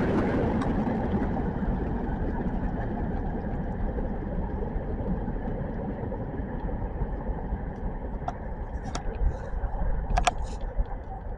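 Rumble of a Wisconsin & Southern freight train fading steadily as it moves away, with a few sharp clicks near the end.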